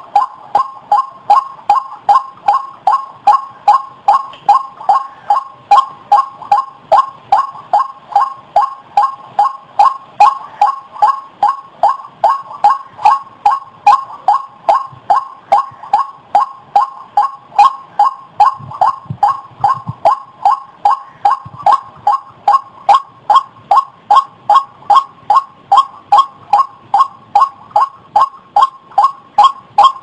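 White-breasted waterhen calling: its 'ruak-ruak' note repeated steadily and loudly, about two notes a second.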